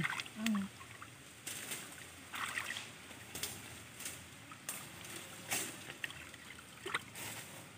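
Shallow muddy water sloshing and splashing in short irregular bursts about once a second as hands and legs stir it up while groping for fish by hand. A brief vocal sound just after the start.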